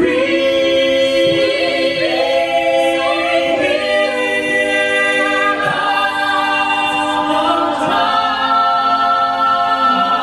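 A cappella vocal ensemble singing sustained chords in close harmony, with no instruments.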